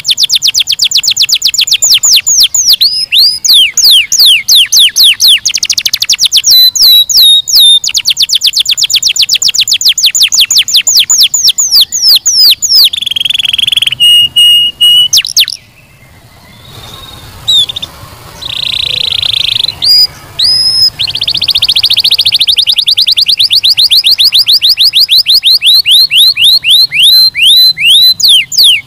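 Domestic canary singing: long rolls of fast repeated notes, broken by a few held whistled notes and a short pause about halfway through, after which the rolls start again.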